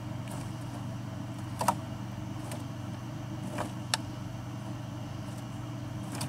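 A steady low mechanical hum, with a few short clicks over it: the loudest about a second and a half in, another sharp one near four seconds.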